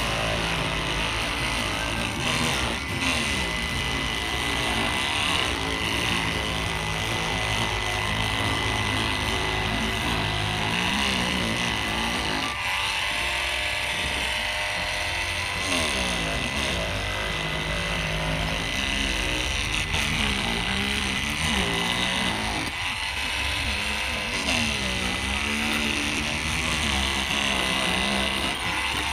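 Battery-powered INGCO oscillating multi-tool running steadily with a constant high whine as its blade cuts into a durian husk. Background music plays along with it.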